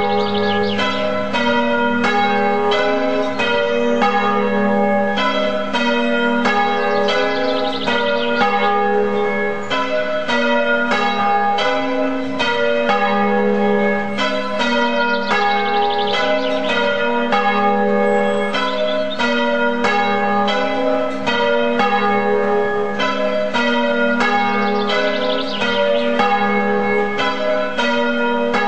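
Church bells ringing a continuous peal of several bells of different pitches, struck in a steady, rapid succession of about three strokes a second.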